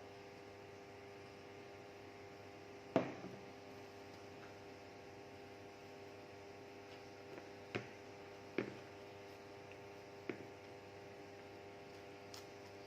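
Steady electrical hum, with a few sharp clicks over it; the loudest click comes about three seconds in.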